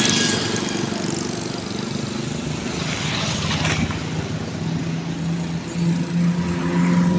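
Road traffic passing on a highway, mostly motorcycles: a pass-by swells about halfway through, and a steady motorcycle engine hum grows louder near the end.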